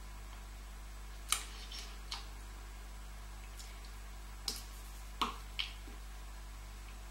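Scattered sharp clicks and taps, about six of them, the loudest about a second and a half in, made incidentally by a person signing in British Sign Language, over a steady low electrical hum.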